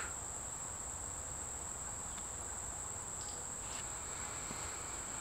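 A steady high-pitched tone that holds unchanged throughout, with a few faint light ticks partway through as a plastic arrow nock is set down on a small digital scale.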